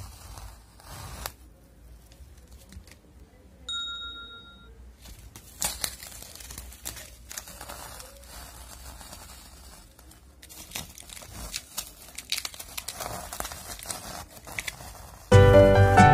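Masking tape being peeled off a painted canvas: scattered crackling and tearing as it pulls away, with a brief steady tone about four seconds in. Loud music starts near the end.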